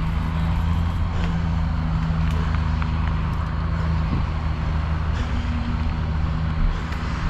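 A motor vehicle's engine running steadily with a low drone, with a few faint clicks and rattles over it.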